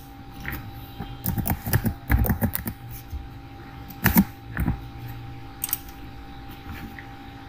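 Computer keyboard typing: a quick run of keystrokes about a second in, followed by a few single clicks, over a faint steady hum.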